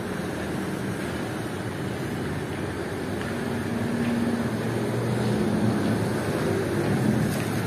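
Steady rushing background noise with a faint low motor hum, growing a little louder about halfway through.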